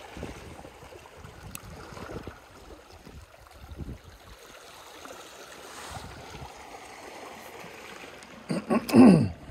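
Small waves washing and lapping against a rocky shoreline in a light wind, with faint handling knocks from fishing gear. Near the end comes one brief, much louder sound that falls steeply in pitch.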